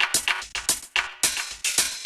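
Electronic percussive music: a fast run of sharp, clattering hits, several a second.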